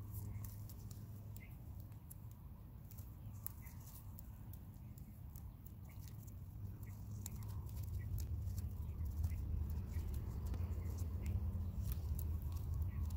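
Quiet clicks and rustles of hands unwinding string from a bundle of damp dyed cloth, over a steady low hum that grows louder in the second half.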